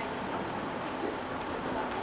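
Steady drone of idling engines, even throughout with no single sound standing out.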